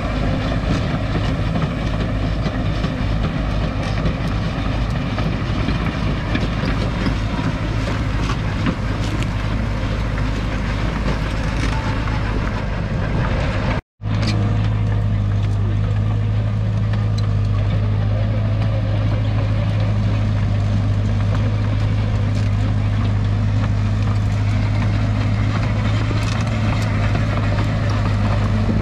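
Cat E120B tracked excavator's diesel engine running steadily under load as the machine pulls up and drags trees, with a strong low hum. The sound cuts out for an instant about halfway through.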